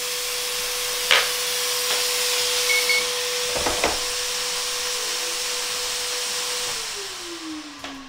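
Handheld hot-air heat gun blowing, a steady rush of air with a steady hum. Near the end it is switched off and its fan winds down, the hum falling in pitch as the air fades. Two short knocks, about a second in and near the middle, come from tools being handled.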